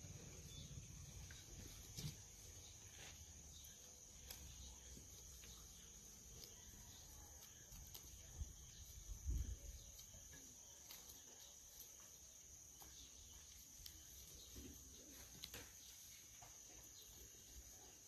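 Quiet outdoor ambience: a steady, high-pitched insect drone with a few faint scattered clicks, and a brief low bump about nine seconds in.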